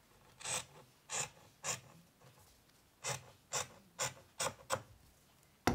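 Scissors snipping through quilting cotton, trimming off the seam allowance, in about eight short cuts that come in two groups, with a sharp click near the end.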